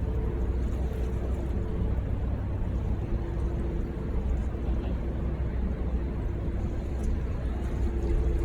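Steady low engine rumble with a droning hum, as of a large vehicle or vessel running at an even speed.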